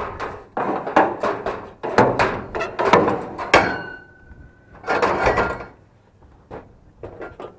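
Scrap metal pieces being handled and loaded, knocking and clattering in quick succession, with one piece ringing on briefly near the middle, then another short burst of clatter and a few small knocks.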